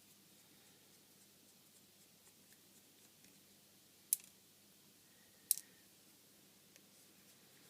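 Faint small ticks of a T5 Torx screwdriver working the corner screws out of an HTC Desire phone, with two sharp clicks about four and five and a half seconds in.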